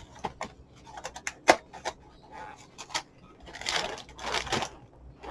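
Scattered small clicks and brief rustling, with one sharper click about a second and a half in and a longer rustle near the middle, as of a cardboard cereal box and its contents being handled close by.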